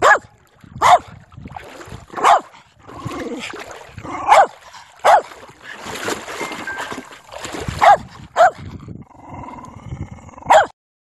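A dog barking, about eight short, sharp, loud barks at uneven intervals, the sound cutting off suddenly near the end.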